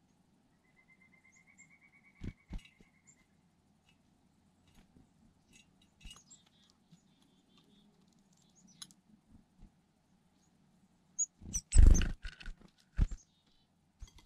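Black-capped chickadees feeding at a teacup of sunflower seeds: scattered light taps and clicks of a bird pecking and shifting seeds, with faint high chips and a short, evenly pulsed trill about a second in. Near the end comes a cluster of loud, sharp knocks and scrabbling close to the microphone as a chickadee works at the seeds on the table.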